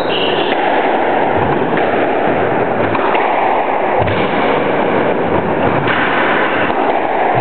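A loud, steady rushing noise across the squash court recording, with a few dull low thuds from play on the court.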